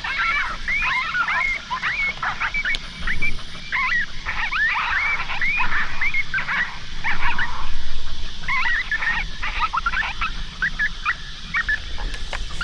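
Rapid string of high-pitched coyote pup yips and whines, each a quick rising or falling glide: the Coy Pup Frenzy distress sound from an electronic predator call.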